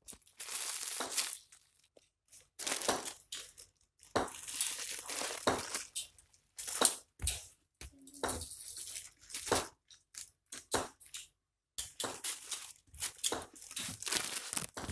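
Plastic squishy-toy packaging crinkling and rustling as it is handled, in irregular bursts with a few short pauses.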